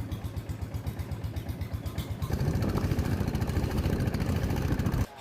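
Longtail boat engine running with a rapid, even chugging, getting louder a little after two seconds in and cutting off abruptly just before the end.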